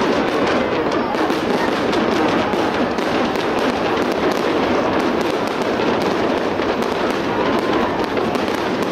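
Fireworks going off as a dense, continuous stream of crackles and pops, with a steady din of voices underneath.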